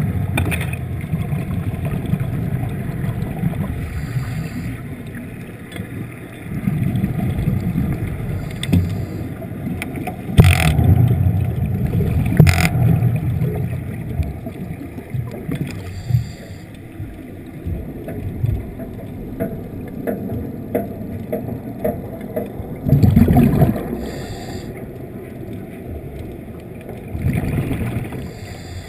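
Underwater rumble of a diver's exhaled breath bubbling out of the breathing regulator, rising into louder bubbling surges every few seconds, with a few sharp clicks.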